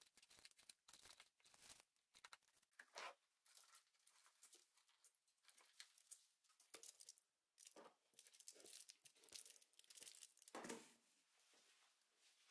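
Faint crinkling and rustling of aluminium foil in quick, irregular bursts as a gloved hand presses self-adhesive LED strip onto the foil lining of a plastic box.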